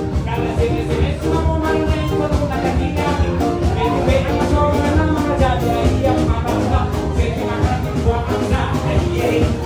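Live band dance music with a singer, amplified through PA speakers, with a steady beat.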